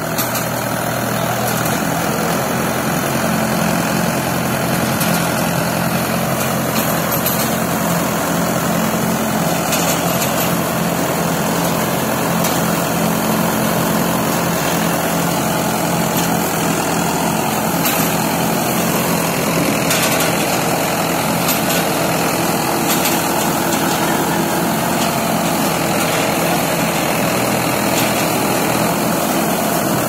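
Trakstar 550 tractor's diesel engine running steadily while it tows and powers a round baler through straw, the engine and the working baler making one continuous mechanical noise.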